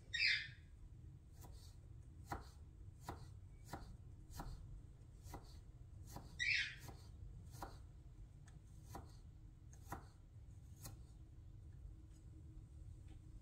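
Knife mincing a garlic clove on a wooden cutting board: separate sharp taps of the blade on the board, about one to two a second, with two louder, longer sounds, one right at the start and one about six and a half seconds in.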